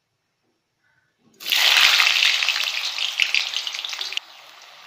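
Potato chunks frying in hot oil in a kadai: near silence at first, then about a second and a half in a sudden loud sizzle as they hit the oil, which drops abruptly to a softer, steady sizzle near the end.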